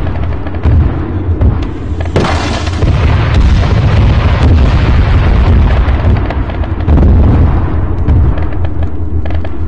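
Battlefield explosions: a heavy, unbroken low rumble with many sharp blasts and cracks layered over it, and a louder, sharper blast about two seconds in.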